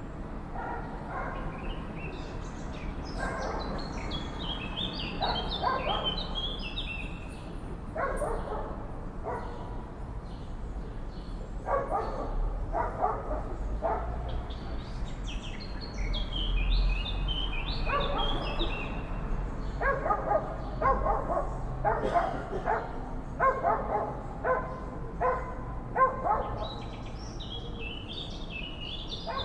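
Crows cawing in short repeated series of harsh calls, more often in the second half. Swallows twitter over them in quick, high, stepping chirps.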